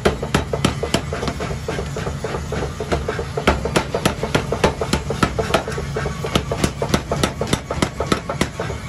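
Power hammer striking a red-hot block of railroad-track steel on the anvil in a fast, steady series of blows, about three a second, over a steady low machine hum.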